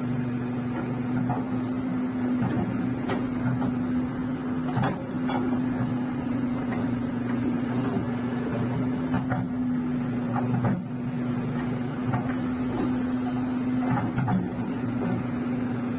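Kobelco SK200 hydraulic excavator's diesel engine running at a steady pitch, with occasional short knocks and clicks from the working machine.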